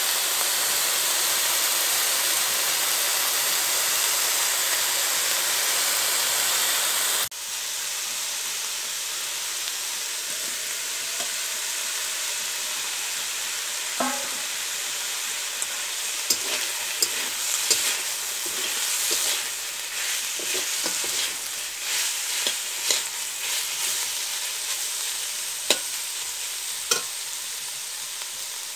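Pork pieces sizzling in a hot metal wok, a steady frying hiss that drops abruptly about seven seconds in. A metal spatula scrapes and clinks against the pan as the meat is stirred, with frequent sharp clinks in the second half.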